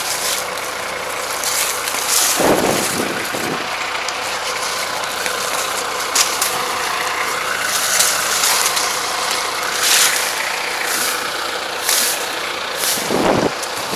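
Kubota 75 hp tractor engine running steadily in the field, with dry vines and grass rustling in short bursts as they are pulled up by hand. Two low thuds, one a couple of seconds in and one near the end.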